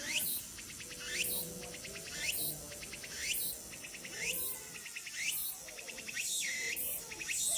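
Cicada singing in repeated phrases about once a second, each a quick run of pulses that ends in a rising sweep.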